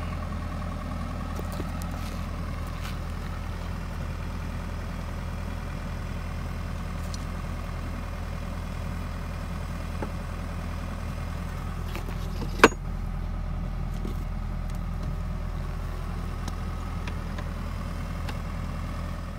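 An engine running steadily, with a single sharp metallic click about two-thirds of the way through.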